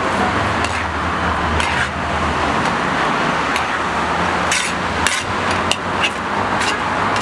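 A steady low hum and background noise, with several sharp knocks and clinks in the second half.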